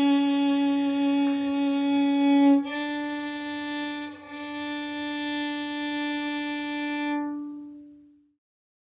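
Slow violin music: long held notes, stepping up to a new note partway through, with the last note fading away near the end.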